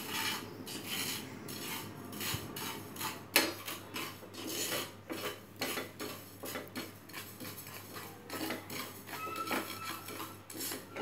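Wooden spatula stirring nigella (kalonji) seeds dry-roasting in a nonstick frying pan: repeated irregular scraping strokes, with the seeds rasping and rustling against the pan.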